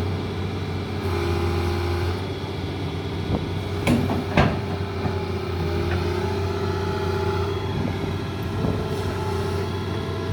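Doosan excavator's diesel engine running steadily while a machine with a failed final drive is unloaded. Two sharp knocks come about four seconds in.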